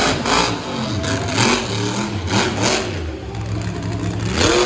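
A monster truck's engine revving hard in repeated surges during a freestyle run, with a sharp rise in pitch near the end.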